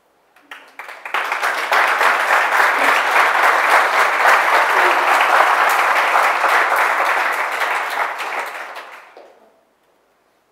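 Audience applauding. It starts with a few scattered claps, swells within about a second into full, steady applause, then dies away near the end.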